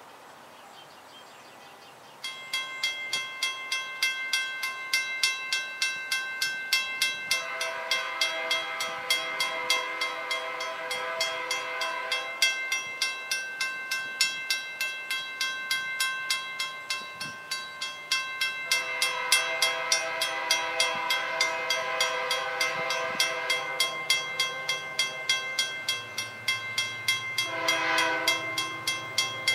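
Level-crossing warning bell ringing steadily at about two strikes a second while an approaching freight train's locomotive horn sounds two long blasts and a short one, the crossing signal. The locomotive's engine rumble grows near the end.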